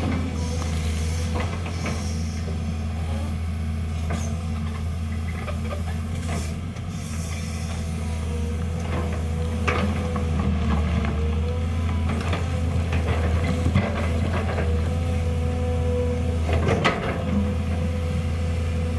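Volvo EC210B crawler excavator's diesel engine running steadily as the machine works its bucket and crawls down a rocky slope, with a wavering whine over the engine hum. Sharp knocks and clanks of steel on rock come now and then, with a cluster near the end.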